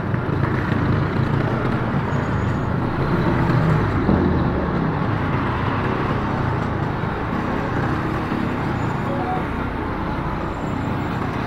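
Steady engine and road noise heard from a motorcycle riding in slow, congested traffic, with cars all around.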